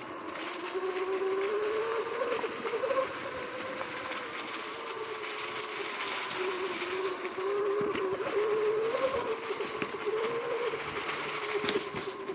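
Sur-Ron X electric dirt bike's drivetrain whining, its pitch rising and falling as the speed changes, over a rush of tyre and wind noise. Two sharp knocks come in the second half.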